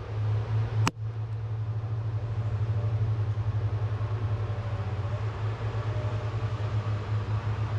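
Diesel engine of a tracked feller buncher running steadily, heard from inside its cab, with a single sharp click about a second in.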